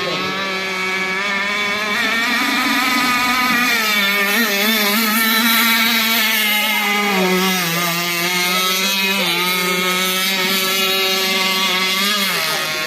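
Motor of a radio-controlled catamaran boat running at speed, a steady buzzing whine whose pitch wavers up and down and dips near the end.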